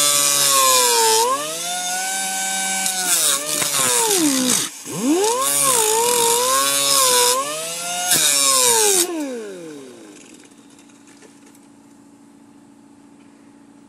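Small grinder with a cut-off disc cutting into the sheet-steel floor pan of a minivan. The motor's whine drops in pitch each time the disc bites, bogging down hard about five seconds in and then speeding back up, while the grinding hiss comes and goes. About nine seconds in the tool is released and the motor winds down, leaving a faint hum.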